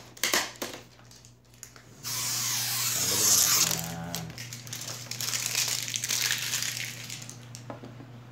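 Thin plastic sheet crinkling and rustling as it is handled at the edge of an LCD TV panel. It starts about two seconds in and lasts about five seconds. A few short clicks come first, and a steady low hum runs underneath.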